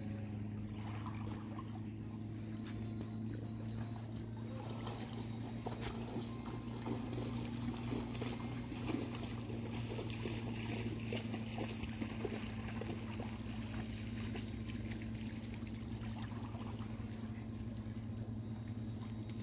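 A steady low motor hum, unchanging in pitch, under the trickling and lapping of small waves at the shoreline.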